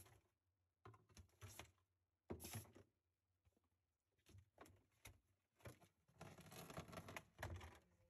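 Near silence with faint, scattered rustling and light handling knocks, in a few short clusters.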